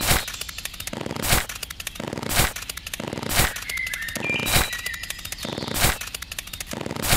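Sharp strikes about once a second, seven in all, over a steady dense crackle, with a few short bird chirps between the strikes.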